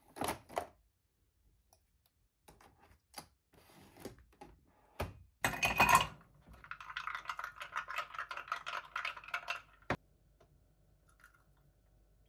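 A few light clicks, then ice cubes dropped clattering into a ceramic mug of espresso, the loudest sound, followed by about three seconds of rapid crackling.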